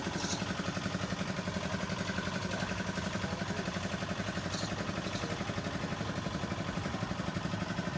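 An engine running steadily at idle, with a fast, even throb.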